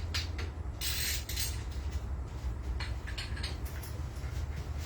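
Torqued bolts on a GM 4.8/5.3 V8 engine block being broken loose with a socket and breaker bar: a string of short creaks and clicks over a steady low hum.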